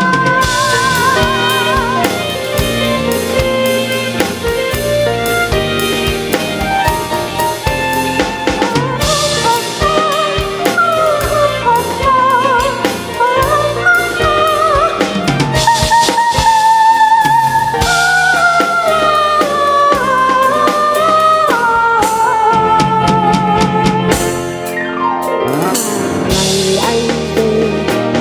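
A band playing an instrumental break: drum kit keeping the beat under chords, with a pitched lead melody wavering in vibrato on top.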